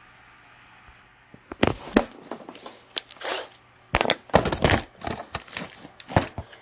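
Irregular clicks, knocks and rustles of hands handling small parts, starting about a second and a half in.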